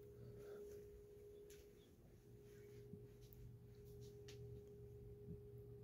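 Near silence: room tone with a faint steady hum and a few soft ticks.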